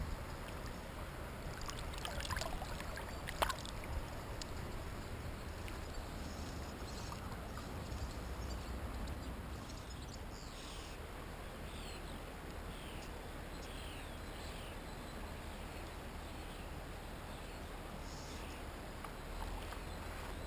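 Riverside ambience with a low, steady rush of water. A few sharp splashes and knocks come about two to three and a half seconds in. From about ten seconds in, a bird repeats short falling chirps for several seconds.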